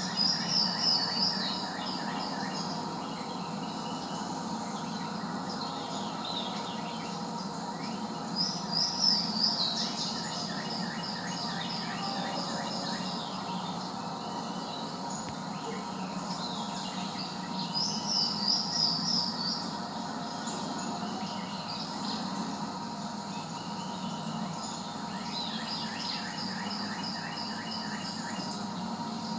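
A songbird singing short, quick, high trilled phrases, about one every eight or nine seconds, over a steady background of insects.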